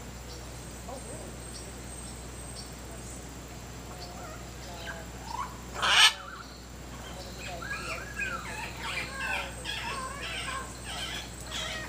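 Parrots calling in the treetops: one loud, harsh squawk about halfway through, then a run of short chattering calls near the end.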